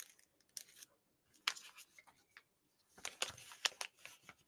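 Faint, scattered rustles and clicks, with a busier cluster near the end.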